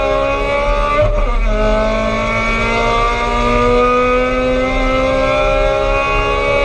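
Race car's 1600 cc-class engine heard from inside the cabin, pulling hard under acceleration. The pitch climbs, drops sharply about a second in as it shifts up, then rises steadily again in the next gear.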